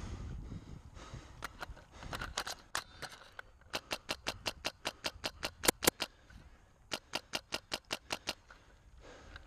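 Airsoft rifle firing quick shots, about five a second: a string of about a dozen sharp pops, then after a short pause about eight more.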